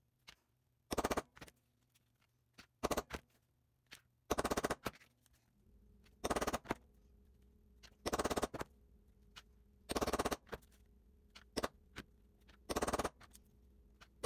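Hammer striking a hollow punch to cut circles out of parchment paper on a cutting mat: seven short bursts of rapid blows about two seconds apart, with a few lighter taps between.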